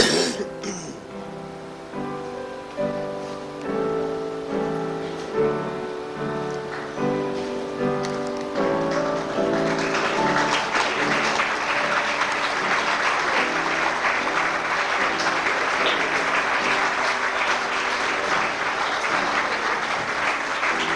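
Piano music of single struck notes, each fading after it is played; about nine seconds in, a crowd breaks into steady applause that carries on over the fading music.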